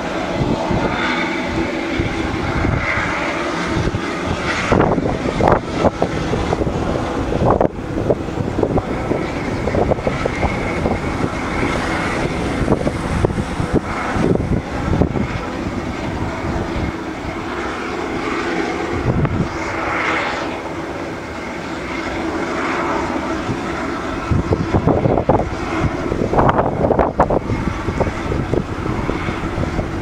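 Steady aircraft turbine noise on an airport apron, a continuous whine with a couple of held tones, with rougher rumbling stretches about four and twenty-five seconds in.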